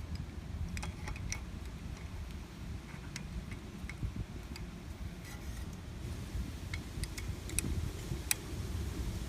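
A few light, sharp clicks and ticks, scattered irregularly, over a steady low rumble.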